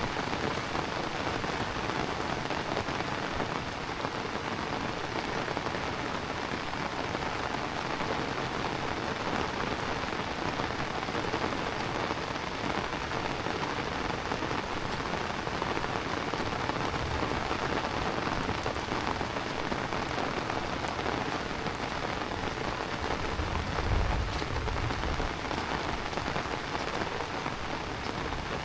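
Heavy rain falling steadily on surfaces, a dense even patter. A brief low rumble comes in a little over three-quarters of the way through.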